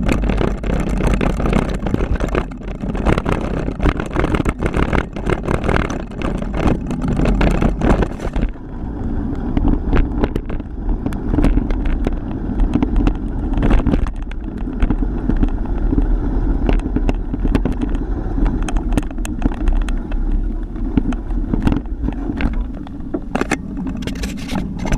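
Wind rushing over a GoPro Hero3 microphone as a Kron XC500 mountain bike descends a rough trail, with the bike and camera mount rattling and knocking over bumps. About eight seconds in, the hiss eases and the knocks become sparser.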